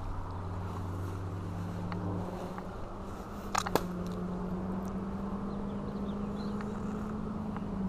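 Motor vehicle engine drone, a steady low hum whose pitch rises slightly, with a couple of sharp clicks about three and a half seconds in.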